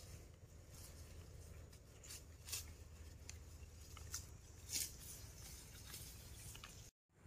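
Sickle slicing through Napier grass stems by hand, a short sharp swish-cut about every half second to second, over a faint low rumble. It cuts off abruptly near the end.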